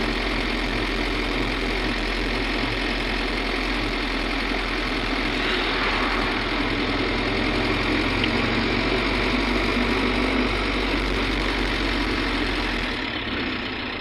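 Car engine and tyre noise heard from inside the cabin while driving steadily along a smooth asphalt road. The low rumble drops away near the end.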